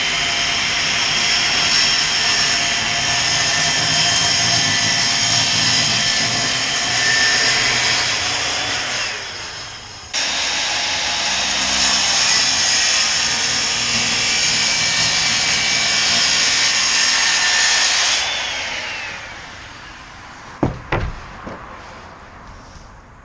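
Electric power tool motor run twice: it whines up to speed and runs steadily for several seconds, winds down, starts again suddenly, runs again and winds down. A couple of sharp knocks follow near the end.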